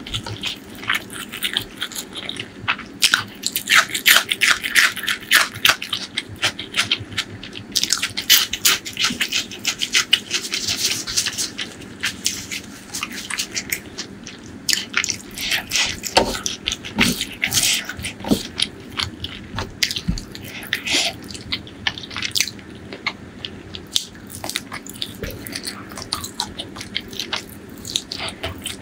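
Close-miked eating of chicken liver and gizzard curry with rice, green chillies and raw onions: a steady run of biting and chewing, with many sharp, wet mouth clicks and crunches.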